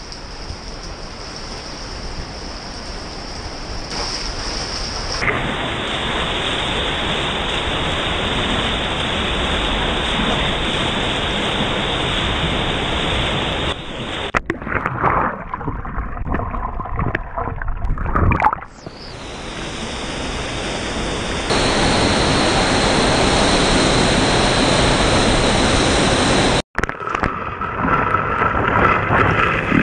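Steady, loud rushing of a waterfall and fast creek water, growing louder as the falls are approached and ending in the spray at the base of the falls. About halfway through, a few seconds of quieter, broken gurgling water interrupt it, and the sound jumps abruptly in level several times.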